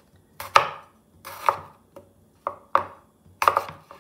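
Chef's knife cutting yellow potatoes into chunks on a wooden cutting board. About half a dozen sharp knocks of the blade meeting the board come at uneven intervals.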